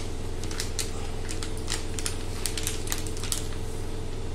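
Plastic flour packet crinkling and crackling as it is handled and gram flour is poured out of it into a steel bowl: irregular sharp crackles over a steady low hum.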